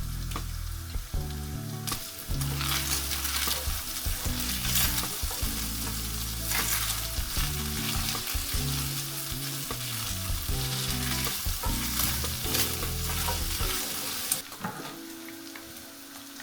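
Minced meat frying and sizzling in a pan as it is stirred. The sizzle grows louder about two seconds in and dies down near the end.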